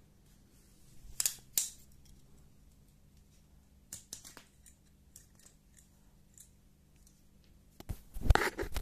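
A few sharp metallic clicks from an Okapi 907E folding knife being handled, with a louder burst of rustling handling noise near the end.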